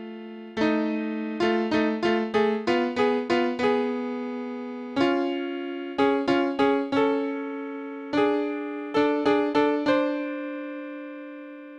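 Keyboard music, piano-like: runs of struck notes over held chords, each note fading after it is struck, ending on a chord that rings on and slowly fades away.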